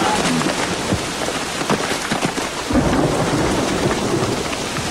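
Steady heavy rain with a low rumble of thunder swelling about three seconds in.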